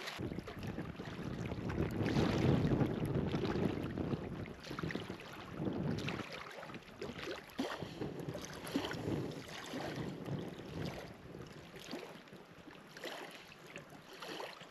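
Gusty wind rushing over the microphone, strongest about two to four seconds in, with scattered irregular ticks and patter through it.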